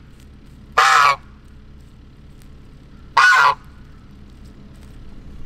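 Angry gander honking twice, two short loud honks about two seconds apart: an aggressive guard goose confronting the person at the fence.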